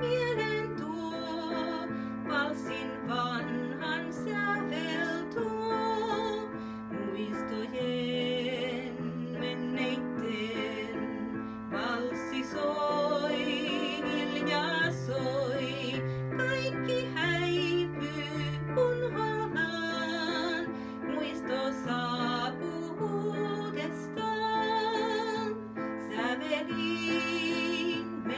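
A woman singing a Finnish waltz with vibrato, accompanied on digital piano.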